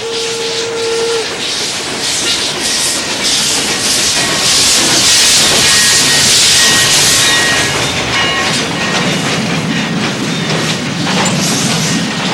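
Steam locomotive pulling into a station. A short steady whistle blast ends about a second in, then a loud hiss of steam with thin high squeals, and a low rumble rises near the end.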